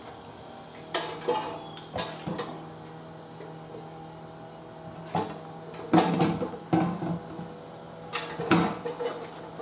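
Irregular metal clanks and knocks, with a ringing tail, from a manual tire changer's steel bead breaker being worked on a tire on a steel wheel. A couple come in the first two seconds, then a lull, then a busier run of clanks from about five to seven seconds in and another near the end.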